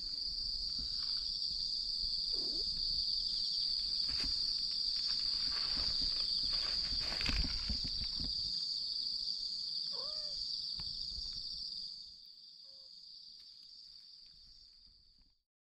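Crickets trilling in one continuous high-pitched drone that cuts off shortly before the end, over low rustling and scuffing for the first dozen seconds. A short call is heard about two-thirds of the way through.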